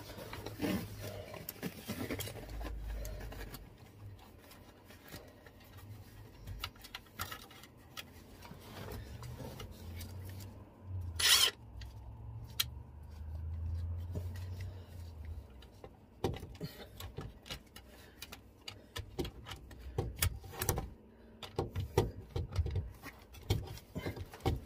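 Hands working pipes and a metal hose clamp on a diesel heater's ducting under a caravan floor: scattered clicks, knocks and rubbing, with low rumbling handling noise. One short, loud burst of noise comes about eleven seconds in, and the clicks grow busier in the second half.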